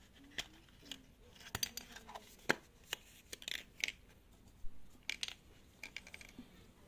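Scattered crinkles, snaps and clicks of a chocolate surprise egg being unwrapped and opened by hand.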